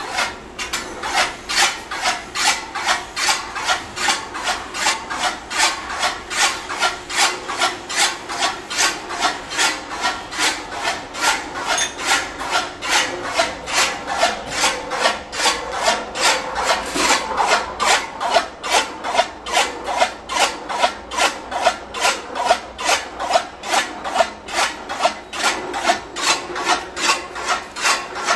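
Chaff cutter (toka machine) turning on its flywheel, giving a rasping scrape that repeats in a quick even rhythm, about two or three strokes a second.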